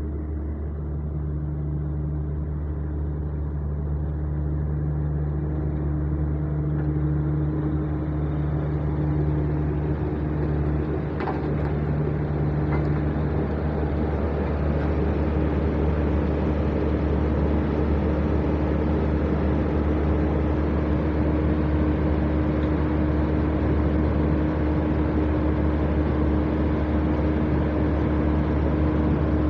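Heavy diesel engine of a construction machine running steadily, with a low drone that grows louder and rougher in the second half.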